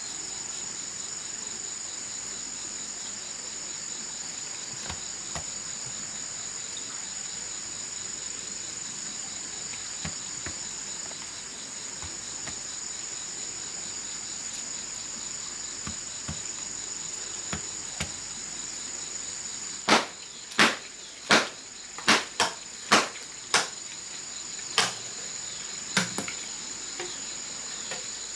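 Steady high-pitched insect chorus with a cricket-like trill. About two-thirds of the way in, it is joined by a run of roughly nine sharp knocks, like a tool striking wood, close together at first and then more spaced out.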